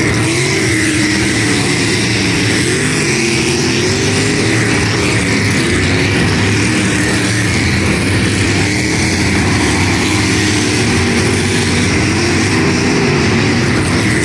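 Several race car engines running around the track at once, their pitch rising and falling slowly as they go round.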